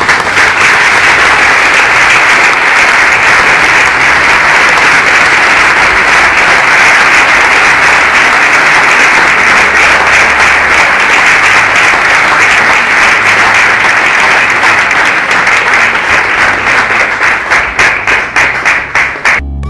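Audience applauding steadily. Near the end the clapping thins into separate claps, then stops abruptly.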